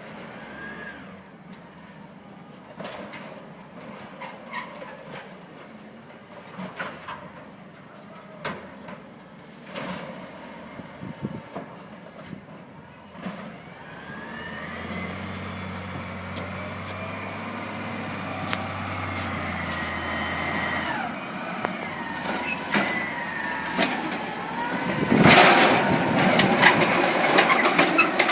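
Amrep garbage truck working: scattered light clicks at first, then about halfway through the engine revs up with a high, rising squeaky whine from the truck. Near the end come several loud knocks and bangs, the loudest part.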